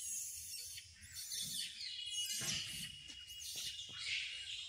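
Small birds chirping in the background, a dense high-pitched chatter with a thin whistled note a little past the middle, and a few soft clicks around the middle.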